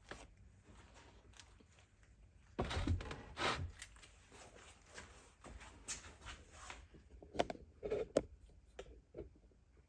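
Workshop handling noises: scattered knocks and clicks as parts and tools are moved around on a bench, with a short rustling scrape about three seconds in and a couple of sharp taps near the end.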